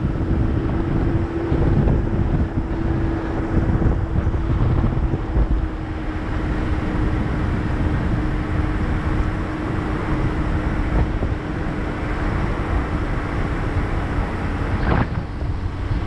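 Car engine pulling up a steep hill under load, a steady drone over road and wind noise. A single short knock about fifteen seconds in.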